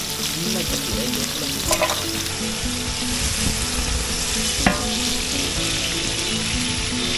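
Sliced onions sizzling in hot oil and ghee in a large metal pot as they are stirred with a wooden paddle, with a sharp knock a little over halfway through. This is the onion-frying stage of a biryani.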